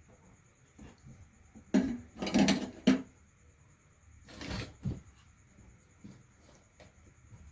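Clicks, knocks and scraping of small hard objects being handled on a work surface, with a louder flurry about two seconds in and another shorter one about four and a half seconds in.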